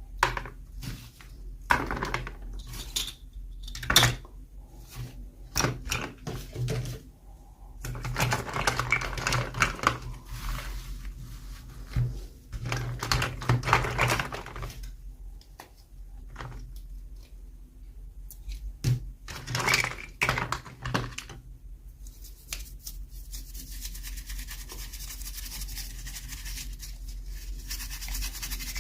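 Hands handling plastic toy packaging and small doll pieces: a string of clicks, taps and rustling, giving way about three-quarters of the way through to a steady rubbing sound.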